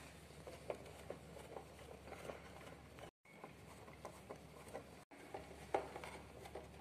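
Faint, scattered clicks and light taps of a screwdriver turning screws out of the plastic back cover of a halogen room heater, with small knocks as the casing is handled. There is a sharper click a little before six seconds in, and the sound cuts out briefly twice.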